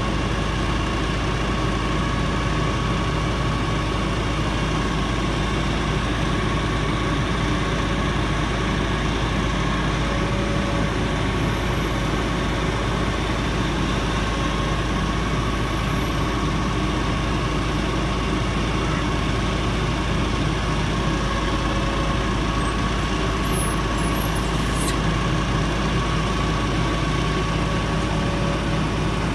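Diesel engines of working boom-crane trucks running steadily, with a constant whine over the low rumble.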